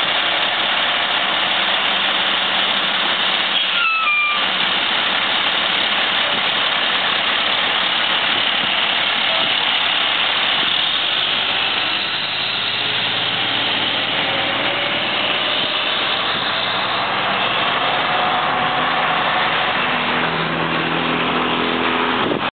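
A 2004 Pierce Quantum fire engine's diesel engine idling, then running as the truck drives off, its pitch shifting in the second half and climbing near the end. A short, high, two-step beep sounds about four seconds in.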